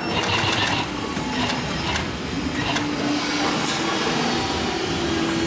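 Hightex 204-370-DP heavy-duty industrial sewing machine stitching thick decorative thread into leather sofa upholstery. Its motor hum comes and goes as the machine starts and stops.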